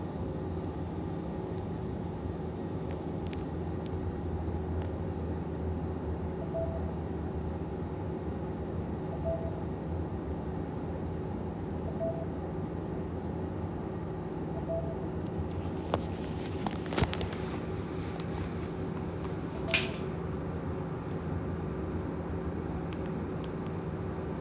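Steady low background hum, with a faint short beep recurring about every three seconds and a few sharp clicks in the last third.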